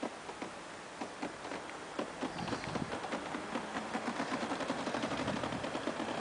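Wheels of a train of SBB passenger coaches rolling through the station, clacking rhythmically over rail joints and points. The clacks come about three a second at first, then quicker and louder from about two seconds in, over a growing rumble.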